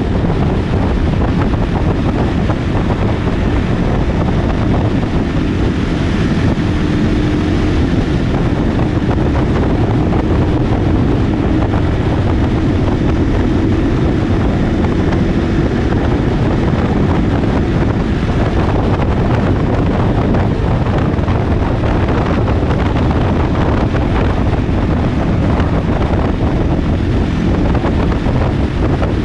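Wind buffeting a GoPro microphone on a moving motorcycle: a loud, unbroken rush with the bike's engine running underneath, its steady note coming through faintly between about six and sixteen seconds in.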